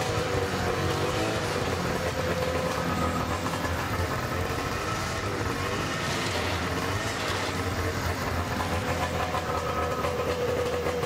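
Arctic Cat Z 580 snowmobile's two-stroke twin engine running steadily at around 3,000 rpm.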